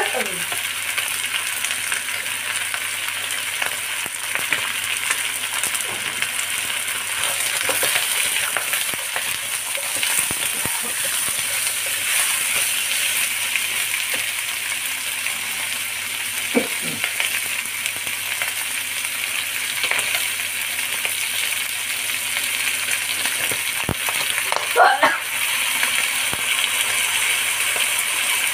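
Chicken wings sizzling steadily as they fry in a non-stick wok, with occasional scrapes and knocks of a wooden spatula stirring them.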